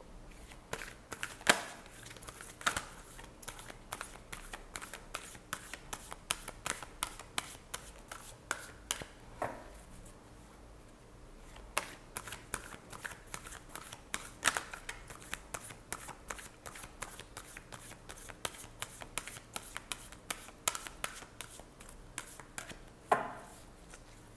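A deck of oracle cards being hand-shuffled: quick, irregular clicks and snaps of the cards against each other, with a short lull about halfway through and a few louder snaps.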